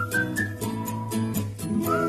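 Background music: an upbeat instrumental track with a steady beat, plucked guitar-like chords and a short whistle-like melody figure repeating every two seconds or so.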